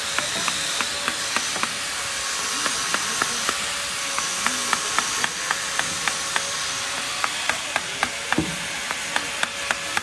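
Hand chisel chipping at a block of ice, a run of short sharp ticks a few times a second at an uneven pace, over a steady background hiss.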